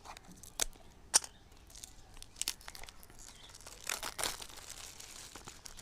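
Smartwatch box packaging being handled and torn open: a few sharp clicks, then crinkling and tearing of wrap or tape, loudest about four seconds in.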